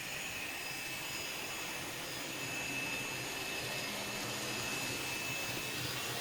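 Kato N-scale SD70ACE model locomotive running steadily around a tight curve with a train behind it: a thin, steady high whine from its motor over the hiss of wheels rolling on the track.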